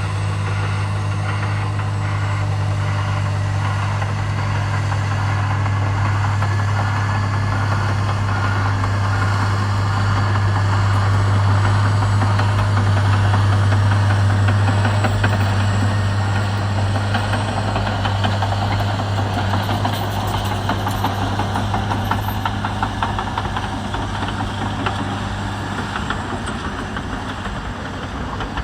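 Caterpillar D9 bulldozer's Cat C18 diesel engine running hard under load, a steady deep drone that grows louder toward the middle and then eases off toward the end.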